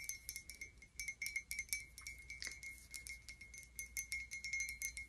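Long fingernails tapping quickly on mugs, many light clicks a second, with each mug giving off a clear, steady ringing tone.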